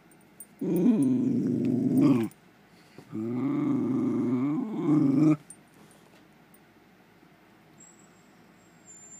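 Dog giving two long, wavering growling grumbles close to the microphone, each about two seconds long: a service dog's vocal alert to wake her sleeping handler.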